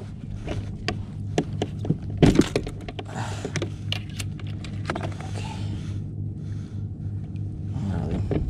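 The plastic hatch lid and gear of a fishing kayak being handled: scattered knocks and clicks, the sharpest about two seconds in, with rustling between them.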